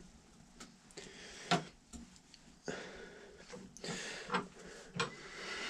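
Steel wool rubbing a small metal pin to scour light rust off it: a faint scratchy hiss, broken by a few light knocks, the sharpest about a second and a half in.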